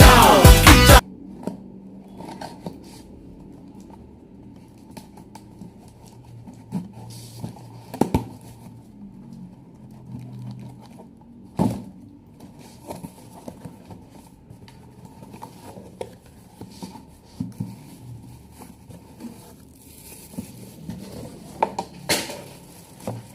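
Music cuts off about a second in. After that come quiet rustling, tearing and crinkling of packaging being unpacked, with scattered light taps and a few sharper knocks.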